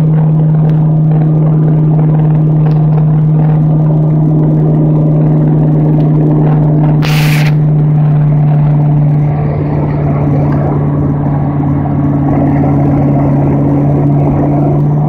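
Ski boat's inboard engine running steadily, a loud, even low drone. A brief hiss cuts across it about seven seconds in.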